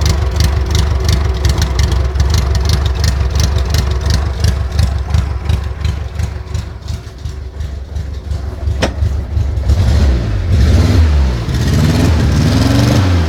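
Fiat 600 engine running at a fast idle with a quick regular pulsing, then revved up and down several times near the end. A single sharp click sounds a little before the revving.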